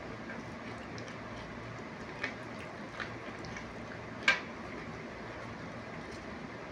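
Steady background hum with a few small, sharp wet clicks from peeling and eating fruit, one louder click a little past the middle.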